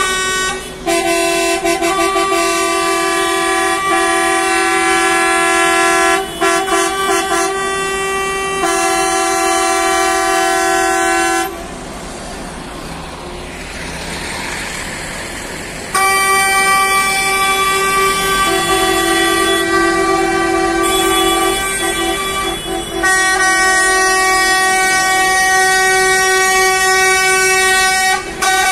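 Bus horns held in long, steady blasts, several sounding together, as a convoy of coaches honks in protest. Near the middle the horns stop for a few seconds, leaving only engine and traffic noise, then start again.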